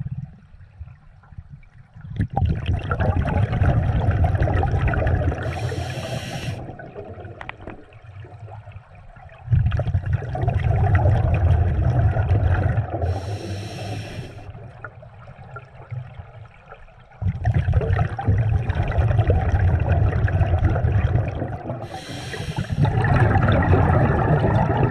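Scuba diver breathing through an open-circuit regulator underwater: each exhalation is a long, low bubbling that starts abruptly and fades, and each inhalation is a short hiss from the regulator, the cycle repeating about every seven to eight seconds.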